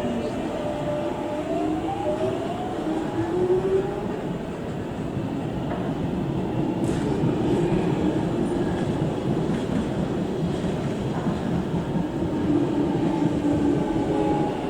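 London Underground Jubilee line 1996-stock train running through the station, its electric traction motors whining. The whine climbs in pitch in steps over the first few seconds, then holds steadier over the noise of the wheels on the rails.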